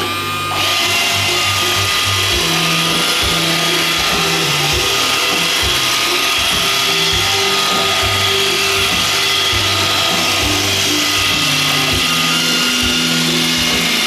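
iRobot Roomba 611 robot vacuum starting a cleaning run: its vacuum motor spins up with a short rising whine, then runs steadily with a high whine and brush noise as the robot drives across a hard wood floor.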